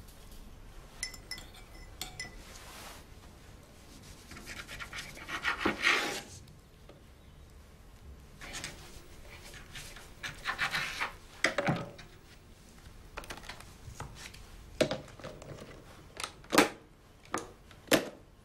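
Breakfast-table sounds: two stretches of rasping scraping over toast, then several sharp clinks of dishes and cutlery set on plates near the end.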